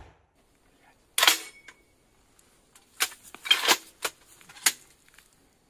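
A few sharp, short clacks, close by: one about a second in, then a quick run of four or five over the next two seconds.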